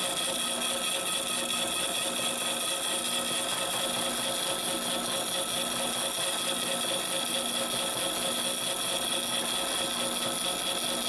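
Milling machine slitting saw cutting a slot into a metal bar: a steady cutting whine made of several held tones over the machine's running noise, unchanged throughout.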